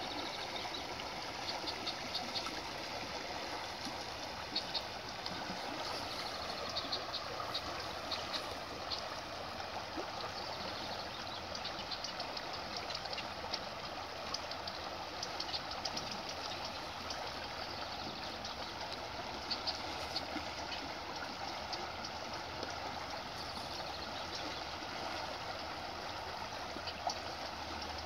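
Steady rush of a small stream of running water, with short, scattered bird chirps over it.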